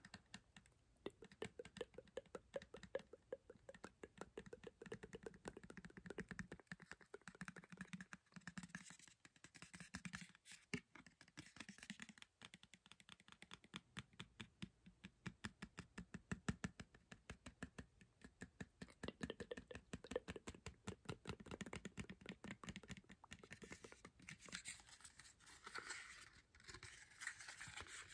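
Fingernails tapping fast on an empty cardboard box: a dense, continuous run of light, hollow-sounding taps.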